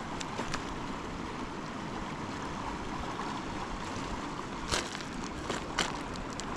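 Steady rush of flowing river water, with two short sharp knocks about five and six seconds in.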